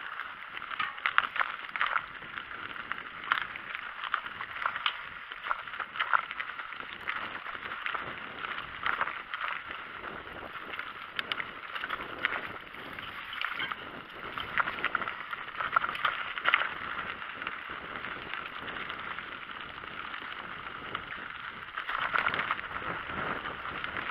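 Mountain bike riding fast down a rough forest singletrack, heard through a handlebar-mounted camera: a continuous rush of tyre and trail noise with irregular rattling and knocking as the bike goes over roots and stones.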